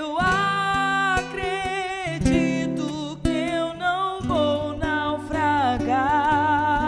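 A woman singing a gospel song of consolation into a microphone, holding long notes with vibrato and sliding between pitches, over acoustic guitar accompaniment.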